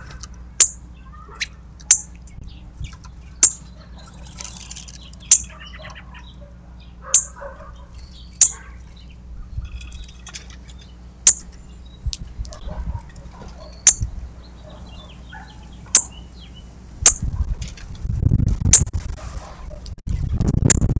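Songbird giving short, sharp, high chip notes, about a dozen at irregular intervals of one to three seconds, with faint twittering between them. A low rumbling noise rises in the last few seconds.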